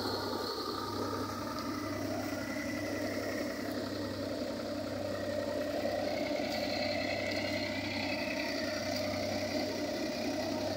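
New Holland 3630 tractor's diesel engine running steadily under load, driving a Vishwakarma thresher as it threshes mustard. The engine and the spinning thresher blend into one even mechanical noise with a low throb underneath.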